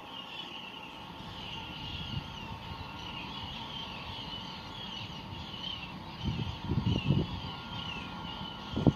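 Harbour ambience at night: a steady mechanical hum with continuous high, wavering chirping over it. A few low rumbling swells come about six to seven seconds in and again just before the end.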